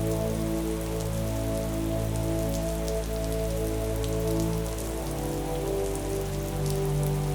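Steady rain falling, with scattered individual drops. Underneath, slow calm music of long held chords moves to a new chord about two-thirds of the way in.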